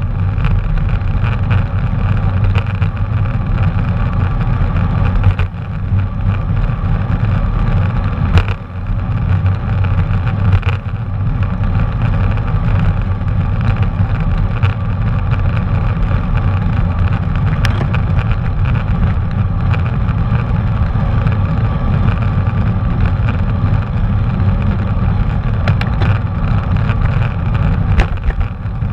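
Wind rumbling over a GoPro action camera's microphone on a moving bicycle, mixed with tyre and road noise. It runs steadily, with a sharp click or rattle now and then.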